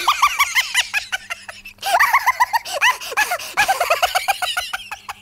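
High-pitched, rapid giggling laughter: short rising-and-falling cries several times a second, breaking off briefly just under two seconds in and then going on.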